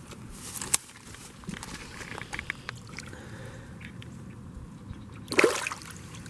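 Pond water sloshing and trickling as a caught bass is released, with a short, sharp splash about five seconds in.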